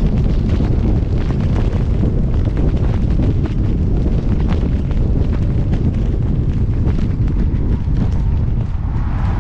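Wind buffeting the microphone of a 360 camera mounted on the roof of a fire engine moving at highway speed: a loud, steady, deep rumble with scattered small ticks throughout.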